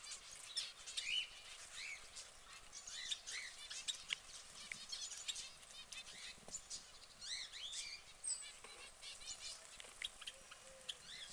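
Caged canary singing a continuous run of rapid chirps and trills.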